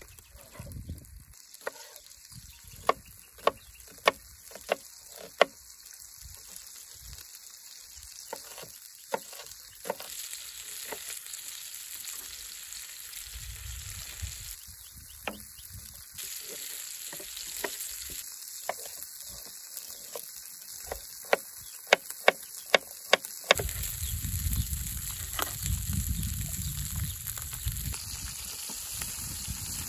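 Lamb chops frying in a pan with a steady sizzle, broken by sharp knife strikes on a wooden cutting board: a few spaced chops a few seconds in, and a quick run of five or so about three-quarters of the way through. A low rumble comes in just after the second run and stays to the end.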